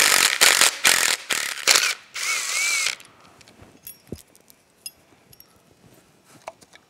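Small cordless impact tool spinning out the bolts of a motorcycle engine's pickup rotor cover: several short bursts in the first two seconds, then one longer run with a wavering whine. After that, faint light clicks as the bolts and cover are handled.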